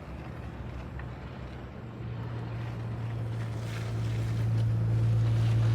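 A steady low engine hum, growing louder through the second half, over a background rush of noise.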